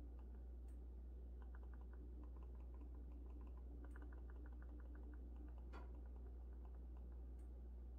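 Faint clicking of an Android TV remote's buttons being pressed: quick runs of several clicks about one and a half seconds in and again about four seconds in, then a sharper single click near six seconds, over a steady low hum.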